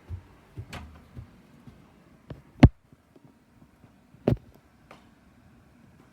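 A few scattered knocks and thumps over faint room noise, the two loudest about two and a half and four seconds in.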